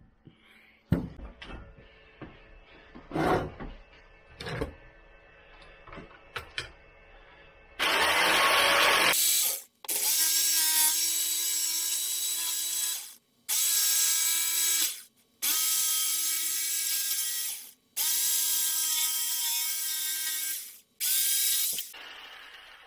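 Handheld jigsaw (Stichsäge) cutting out a template, running in about six loud bursts of one to three seconds each with short pauses between. Before it starts, several knocks and clunks of things being handled.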